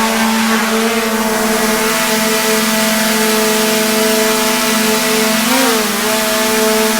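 An engine running at a steady speed, a constant pitched drone, with a brief rise and dip in pitch about five and a half seconds in.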